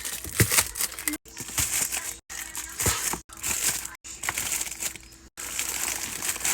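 Plastic grocery packaging rustling and crinkling as food is unpacked and put away, with scattered light knocks, broken by brief total dropouts about once a second.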